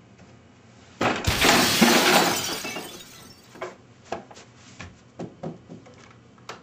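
Glass shattering: a sudden crash about a second in that fades over a couple of seconds, followed by a scattering of small sharp clinks.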